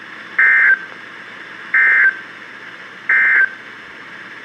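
NOAA Weather Radio SAME end-of-message code: three short bursts of buzzy digital data tones, each about a third of a second long and just over a second apart, over steady radio hiss. The bursts signal the end of the alert message.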